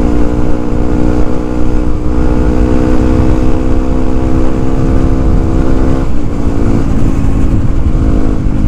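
Yamaha WR155R's single-cylinder engine running steadily at cruising speed, under a heavy rumble of wind on the helmet microphone. The engine note drops slightly about six seconds in and again a second later.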